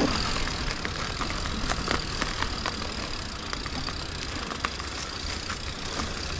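Mountain bike being ridden through overgrown brush: a steady low rumble of tyres on the trail, with many scattered sharp clicks and snaps as twigs and branches brush the bike.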